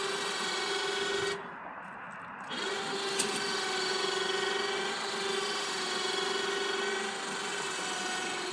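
Electric winch motor of a remote-controlled truck-bed crane running steadily as it pays out cable to lower a kayak. It stops about a second and a half in, starts again about a second later and runs on, with one sharp click shortly after the restart.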